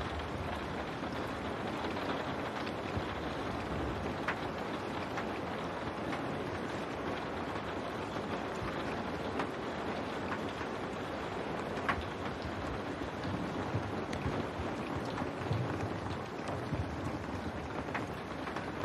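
Steady rain falling on window glass: an even hiss of rain with a few sharper single drop taps standing out.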